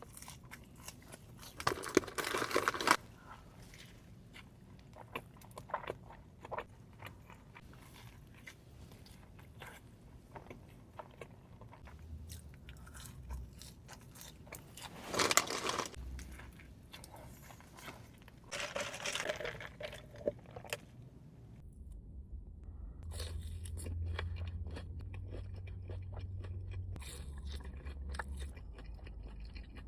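A person eating Five Guys fast food close to the microphone: bites, crunching and chewing, with a few louder bursts of noise.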